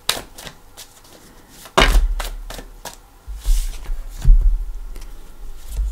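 A tarot deck and its box being handled on a tabletop next to the microphone: several sharp clicks and knocks, the loudest about two seconds in, with dull thumps carried through the table and a short rustle in the middle.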